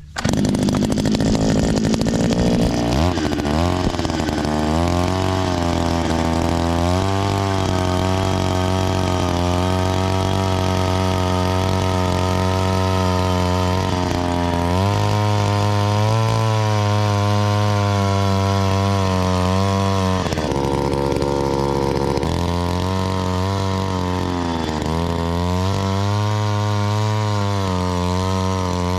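Gas-powered post hole auger engine speeding up over the first few seconds, then running hard as the 8-inch auger bores into the ground. Its pitch sags and recovers several times under load.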